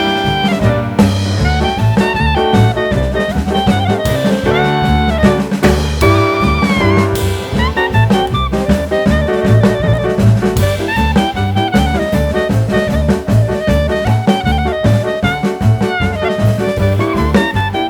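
Jazz music with a horn melody over drum kit and bass, keeping a steady beat.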